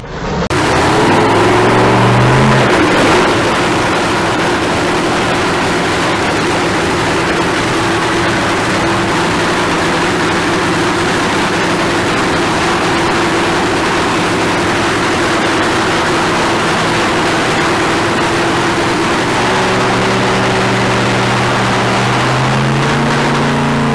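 Supercharged nitro-burning Hemi V8 of an NHRA funny car running in the pits during a warm-up. It is loud and continuous, with the revs climbing in the first couple of seconds, a steady run, and the revs changing again near the end.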